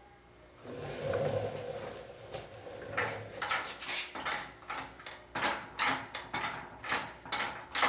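Metal jack stand being worked higher: a rattling sound, then a run of sharp metallic clicks about two a second.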